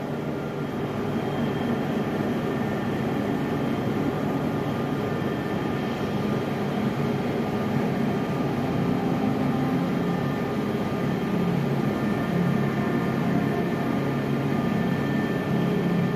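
A steady droning hum with several faint held tones, changing little.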